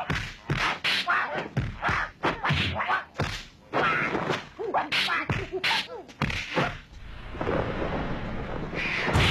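Kung fu film fight sound effects: a rapid string of dubbed punch and kick impacts mixed with short shouts, then a longer rushing noise and a heavy thud near the end.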